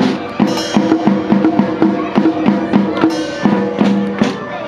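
Drumsticks beating on a set of drum pads, an uneven run of quick pitched drum hits, about three a second.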